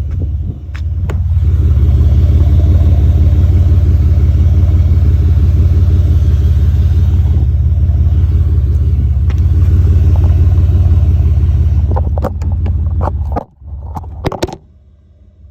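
Exhaust of a 2008 Chevy Impala LS's V6 through a Flowmaster muffler, running steadily at an even pitch with a loud, deep rumble. Near the end a few sharp clicks and knocks break in, and the rumble drops suddenly to a much quieter level.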